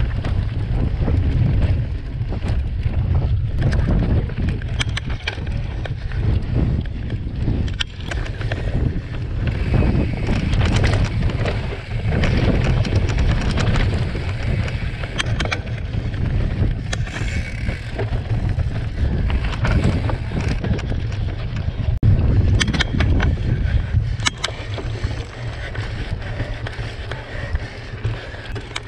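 Wind noise on a bike-mounted camera's microphone and the rumble of a mountain bike riding fast over a dry dirt trail, with frequent sharp clicks and knocks as the bike rattles over bumps and stones.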